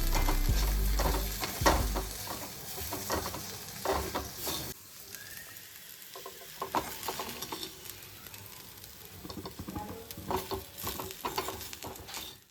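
Food sizzling as it fries in a pan and is stirred, with a spatula clicking and scraping against the pan now and then. The sizzle drops to a quieter hiss about a third of the way in.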